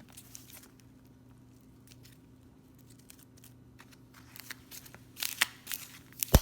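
Slime being worked by hand close to the microphone: scattered soft crackles and sticky pops, growing denser and louder in the last couple of seconds, with one sharp pop just before the end.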